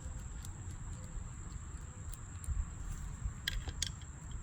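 Low handling rumble with two small sharp clicks just past three seconds in, as the primer bulb cover is unscrewed and lifted off a small two-stroke trimmer carburetor.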